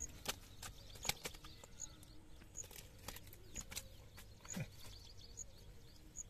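Faint, irregular clicking and crackling of dry grass and a nylon cast net as hands pull a caught fish out of the mesh.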